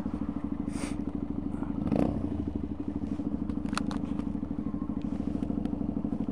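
Motorcycle engine idling with a steady, even pulse, briefly swelling about two seconds in.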